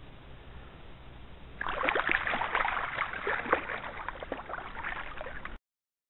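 Shallow water splashing hard as a released rainbow trout kicks away out of the angler's hand, starting suddenly about a second and a half in and cutting off abruptly near the end.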